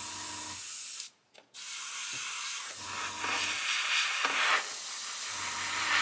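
Airbrush spraying paint: a steady hiss of compressed air that stops for about half a second a little over a second in, then starts again.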